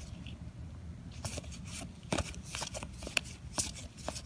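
A hand leafing through a fanned deck of Warhammer Shadespire game cards: quiet, irregular card flicks and slides, coming more often from about a second in.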